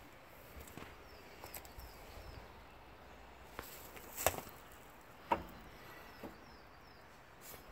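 Footsteps on leaf litter and twigs, with two sharper cracks about four and five seconds in, and faint bird chirps.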